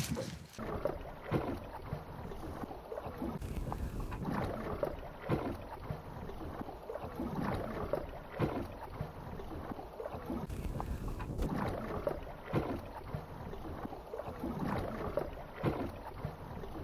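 Small waves lapping and slapping against the hull of a small boat at anchor, about once a second, with some wind.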